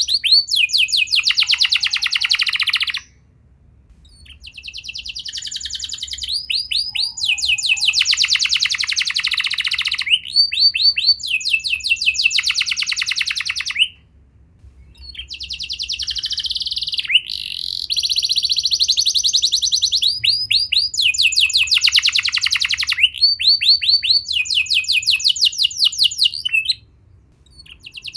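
Canary singing long trilled phrases of rapidly repeated high notes. The song breaks off briefly about three seconds in, again around fourteen seconds, and near the end.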